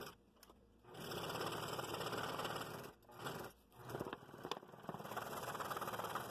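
Scroll saw cutting through stacked blanks of fairly hard wood with a No. 5 XL blade (not reverse-tooth), the blade's rapid up-and-down stroke making a steady buzz. It starts about a second in and dips briefly twice around the middle.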